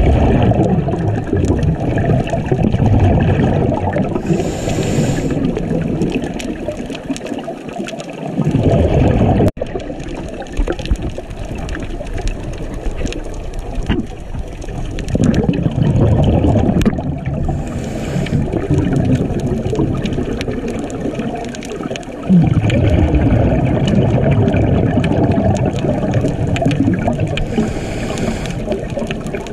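Muffled underwater water noise with surging, bubbling rushes every several seconds, and a short hiss three times.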